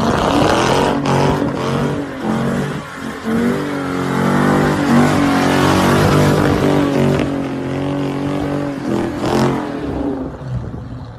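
A car engine revving hard, its pitch rising and falling over and over as the car slides in circles with its wheels spinning in loose sand. A hiss of spraying sand and tyre noise runs along with it.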